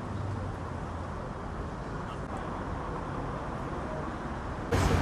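Steady city street traffic noise, an even hum of passing road vehicles.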